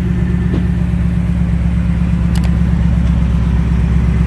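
Ford Mustang GT's 5.0-litre V8 idling steadily. It is being listened to for the Coyote's known 'typewriter' tick after an oil change, and it sounds really good, with no ticks.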